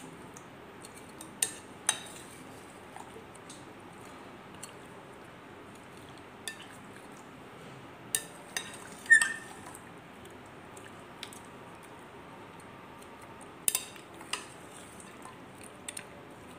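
A plastic fork knocking and scraping against a glass bowl while turning marinated chicken pieces: scattered sharp clinks, the loudest about nine seconds in with a short ring, over a low steady background hiss.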